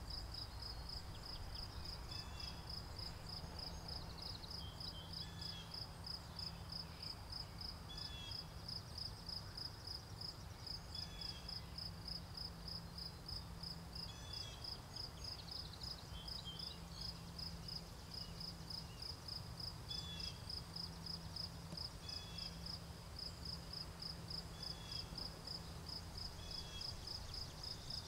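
Crickets chirping steadily in an even, high-pitched rhythm, with a softer short call repeating every two to three seconds over a faint low rumble.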